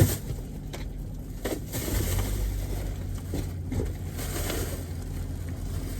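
Car idling, heard from inside the cabin: a steady low hum that gets a little louder about two seconds in, with a sharp click at the start and a few faint knocks.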